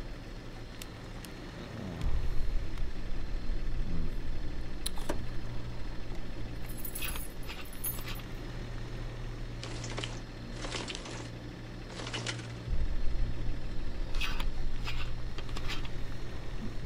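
Motor scooter being cranked on its starter again and again without catching, with clicks and key jingles from the ignition. The cranking picks up about two seconds in and again near the end. The engine won't fire because the tank is out of petrol.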